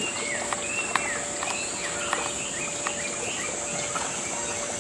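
Baby macaque crying: a string of short, high-pitched calls, each rising and then falling, about two a second, over a steady high hiss with a few sharp clicks.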